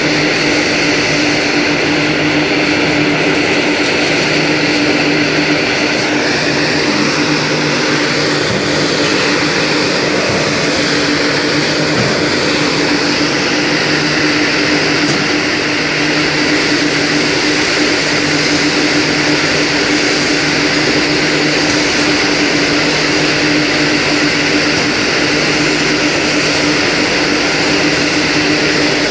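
Electric colloid mill (date grinder) running steadily: a loud, even motor hum with one strong steady tone and a grinding hiss over it.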